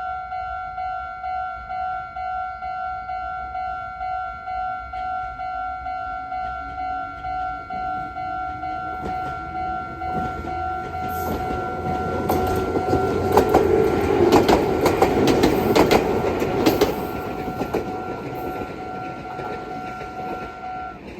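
A Japanese level-crossing warning bell rings in steady repeated dings while an electric train passes. The train's wheels clatter over the rail joints and a motor whine rises slowly in pitch. The bell stops just before the end.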